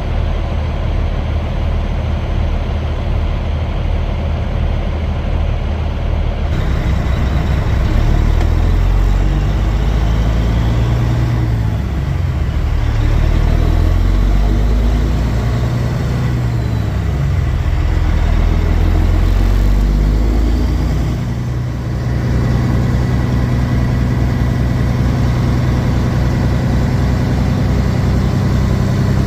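Heavy semi-truck diesel engine and road noise heard inside the cab of a Kenworth W900 at highway driving. The engine note bends down and back up a few times around the middle, then runs steady through the last several seconds.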